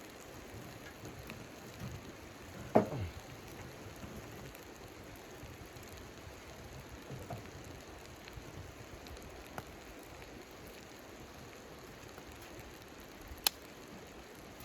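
Steady soft patter of blizzard snow on the hot tent's fabric. A loud crackle from the wood stove comes about three seconds in, and a sharp pop sounds near the end.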